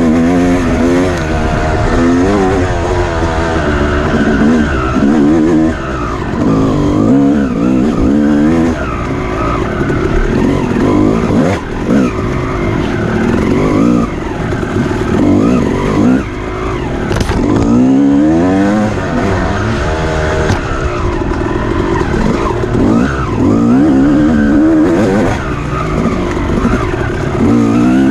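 Off-road dirt bike engine revving hard and falling back over and over, its pitch climbing and dropping every couple of seconds as the throttle is worked and the gears change.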